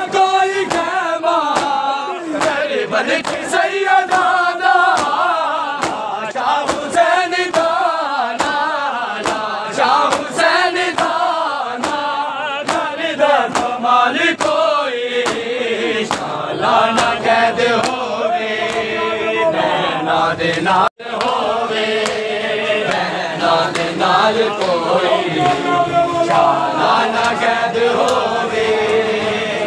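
A crowd of men chanting a Punjabi noha in unison, with rhythmic slaps of hands striking chests (matam) in time with the chant. The sound cuts out for an instant about two-thirds of the way through.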